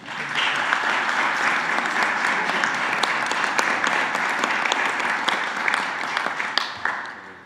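Audience applauding, starting abruptly and dying away near the end.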